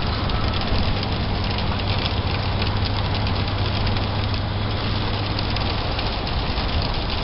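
Rain pelting the roof and windshield of a moving van, heard from inside the cabin, over a steady hum of engine and road noise.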